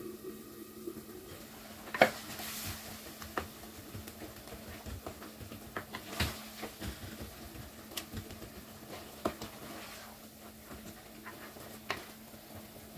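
Wooden spoon stirring and scraping minced meat and potatoes in a clay cooking pot while frying them, with a handful of sharp knocks of the spoon against the pot. A faint steady hum runs underneath.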